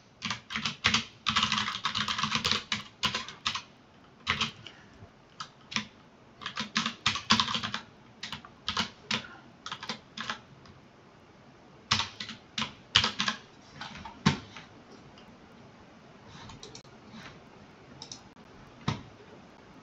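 Typing on a computer keyboard: irregular runs of quick keystrokes, thinning out to scattered taps after about fourteen seconds, with a few fainter clicks near the end.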